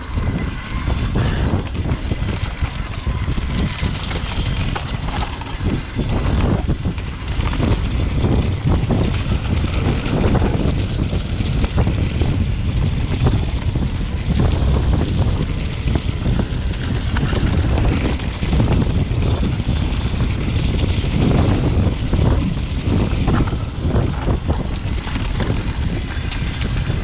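Wind buffeting the microphone on a fast mountain-bike descent, over the rattle and knocks of an Orange Stage 6 full-suspension bike and its tyres rolling over a dirt trail strewn with leaves.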